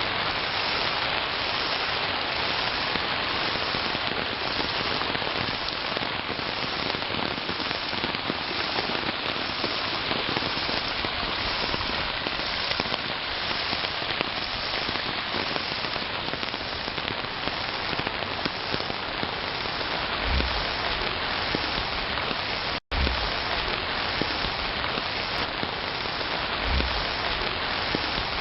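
Steady hiss of heavy rain falling, with a split-second gap about four-fifths of the way through and a few short low rumbles near the end.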